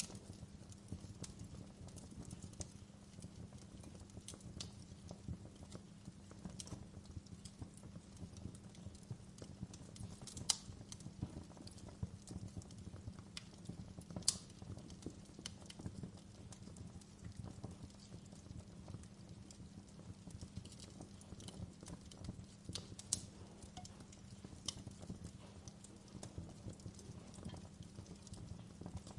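Wood fire crackling in a fireplace: irregular sharp pops and snaps over a low steady rumble, with two louder pops about ten and fourteen seconds in.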